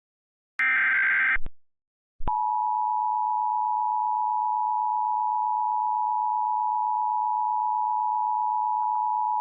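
Emergency Alert System tones. A short buzzy burst of SAME header data lasts under a second, then after a brief silence the EAS attention signal begins: two steady tones sounded together (853 and 960 Hz), held evenly.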